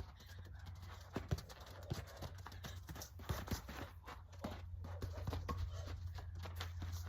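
Soccer ball being dribbled: a run of short, irregular taps of feet touching the ball and stepping, over a steady low rumble.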